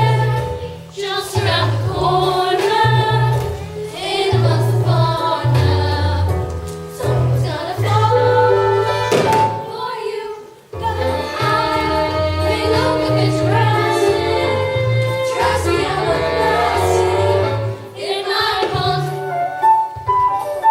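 Musical-theatre song: voices singing over a band with a steady bass line, pausing briefly two or three times.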